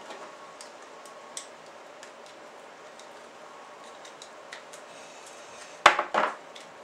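Two-piece plastic gear block of an RC helicopter's torque-tube drive being prised apart by hand: faint scattered plastic clicks, then two sharp clicks near the end as the halves come apart.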